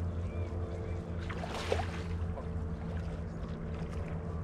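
Motorboat engine droning steadily at a distance, an even low hum without changes in pitch, with a short brighter noise about a second and a half in.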